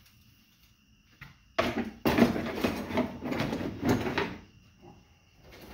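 Solid copper armature bars clattering and rattling against each other and into a plastic bucket as a handful is dropped in, a burst of metal clatter starting about a second and a half in and lasting about three seconds.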